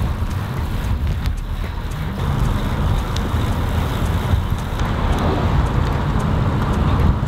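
Road noise of a moving car with wind rushing past: a steady low rumble that keeps shifting in strength.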